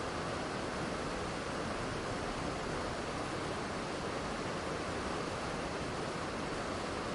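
Waterfall running steadily, an even rush of falling water with no change in level.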